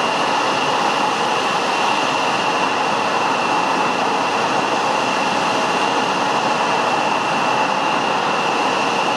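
Embraer 170 jet's turbofan engines running steadily at taxi power: an even rush with a steady high whine over it.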